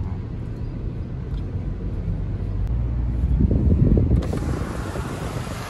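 Mahindra Scorpio N driving through floodwater, heard from inside the cabin: a low rumble of engine and tyres in water that swells about three and a half seconds in. A hiss of water spray comes in suddenly a little after that.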